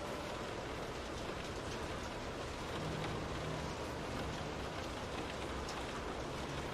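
Steady rain falling on a window pane, an even dense patter with individual drops ticking through it.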